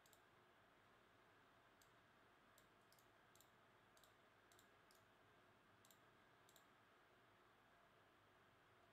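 Near silence: room hiss with about ten faint, short clicks at irregular intervals, most of them in the first two-thirds.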